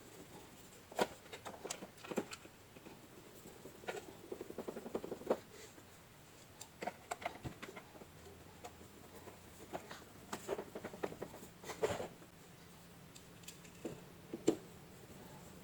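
Scattered small clicks, taps and scratchy rustles of hands handling parts and tools at a workbench, with a sharper knock now and then.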